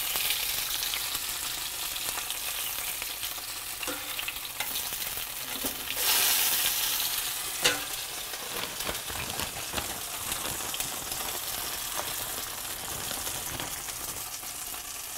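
Pieces of snapping turtle sizzling in hot oil in a cast-iron skillet, a steady frying hiss that swells for a second or so about six seconds in. A sharp metal knock halfway through, with a few lighter ticks of tongs and pans.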